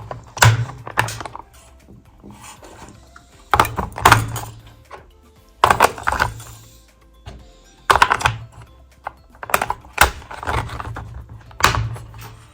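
Background music with a bass line and sharp percussive hits, often in pairs, about every two seconds.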